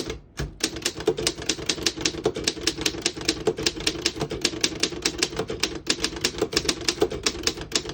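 1936 Underwood 12 manual desktop typewriter being typed on at a steady pace, a quick run of sharp key and typebar strikes at about six a second, the keys working freely without sticking.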